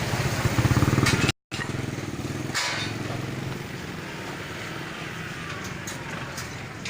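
A small engine running steadily with a low pulsing hum, cutting out completely for a moment about a second and a half in, then continuing a little quieter.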